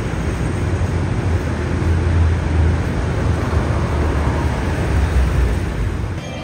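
Steady low rumbling noise of a running vehicle, dipping briefly near the end.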